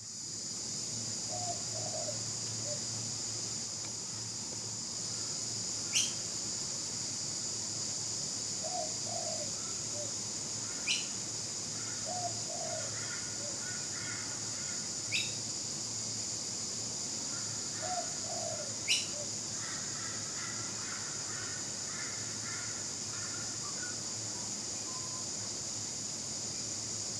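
Wild birds calling outdoors: short low calls recur every few seconds, four sharp rising whistled calls sound a few seconds apart, and a patter of small chirps comes later. All of this sits over a steady high-pitched hiss.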